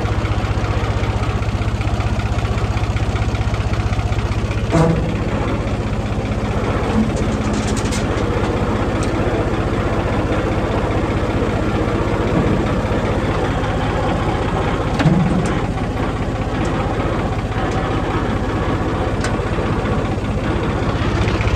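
Farm tractor engine running steadily at a low idle, with a couple of short knocks about five seconds in and again near fifteen seconds.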